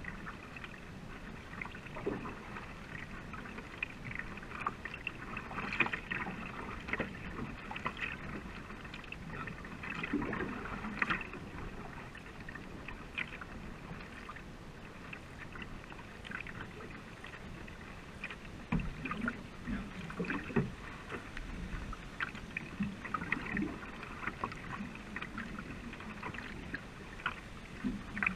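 A racing canoe under way, heard from its deck: water splashing and gurgling along the hull, with irregular small splashes from paddle strokes.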